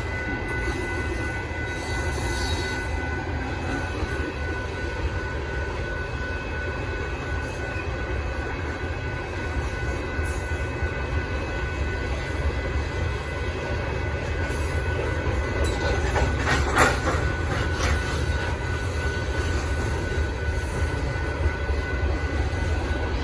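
Union Pacific sand train's freight cars rolling past: a steady low rumble of wheels on rail with thin, steady high-pitched tones over it, and a sharp clank about 17 seconds in.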